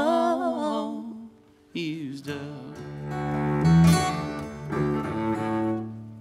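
The last held sung note ends about a second in. Then a bowed cello and an acoustic guitar play the closing notes of a blues-folk song, which ring out and fade away near the end.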